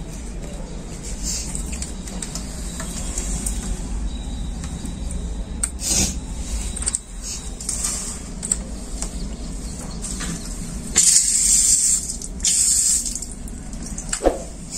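Plastic hose coupling and wall tap clicking and knocking as a washing machine's inlet hose is fitted to the tap, then two short bursts of hissing spray near the end as water sprays at the tap.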